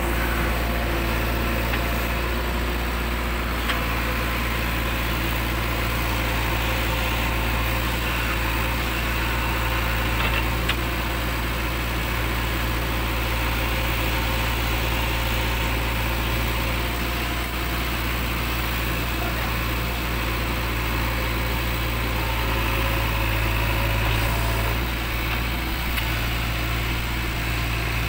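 A JCB 3DX backhoe loader's diesel engine runs steadily while the backhoe digs soil out of a loaded tractor trailer. A couple of faint knocks come through, around four and eleven seconds in.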